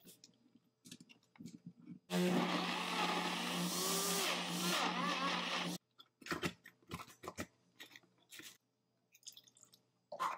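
NutriBullet countertop blender motor running for about four seconds from about two seconds in, chopping frozen strawberries, then cutting off abruptly. Short knocks and taps of fruit and hands against the plastic jug come before and after it.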